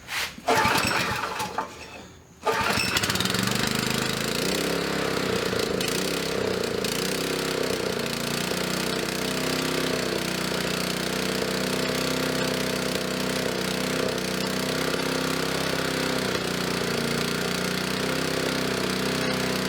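Small gasoline engine of a portable air compressor starting on choke: a couple of seconds of uneven cranking, then it catches about two and a half seconds in and runs steadily.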